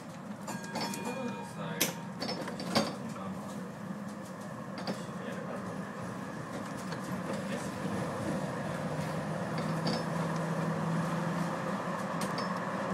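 Running noise of a Type E1 tram heard from inside the driver's cab: a steady low hum with the rumble of wheels on rails, growing gradually louder. Two sharp clicks about two and three seconds in.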